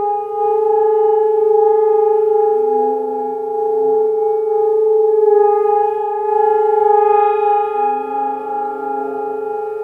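Singing bowls ringing in a long sustained drone: one steady tone with a strong octave above it. A lower tone swells in briefly twice, about three seconds in and again near the end.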